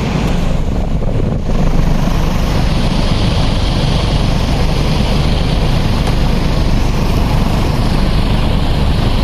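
Large Uline drum fan, fitted with a heavy steel propeller, running at its high speed setting: a steady, loud rush of air, with wind buffeting the microphone held close to the fan.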